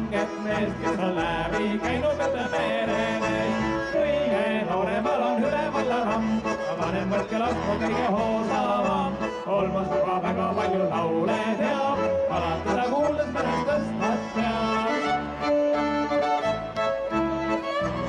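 Instrumental background music with a steady bass rhythm.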